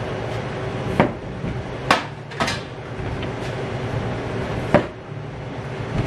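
Chef's knife cutting peeled potatoes in half on a plastic cutting board: a few sharp, irregular knocks as the blade goes through and strikes the board.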